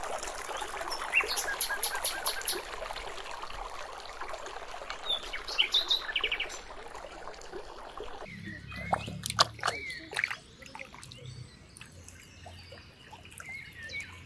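Water trickling and splashing, with birds chirping over it. About eight seconds in the water sound stops suddenly, leaving bird calls and a few knocks.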